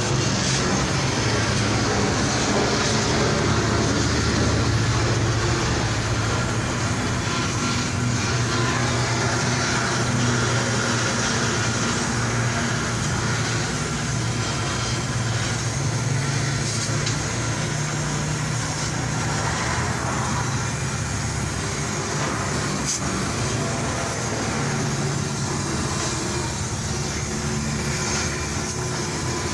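Steady motor-vehicle rumble with a low hum, even throughout.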